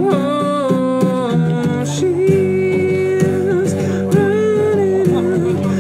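A song: a voice singing a slow, held melody over acoustic guitar chords.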